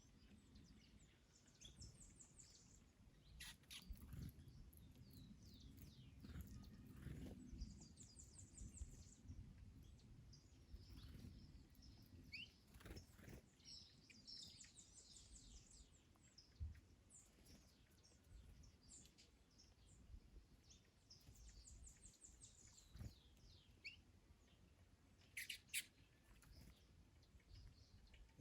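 Faint garden birdsong: several small birds chirping, with a fast high trill repeating every six seconds or so and a sharper call near the end, over a low rumble of wind.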